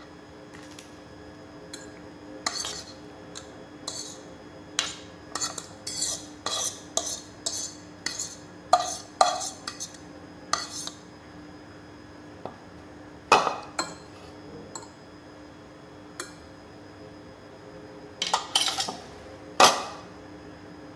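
A utensil scraping and knocking against a bowl and a ceramic plate as food is scraped out of the bowl, in irregular clusters of short clicks and scrapes with a loud knock about two-thirds of the way in. A faint steady hum sits underneath.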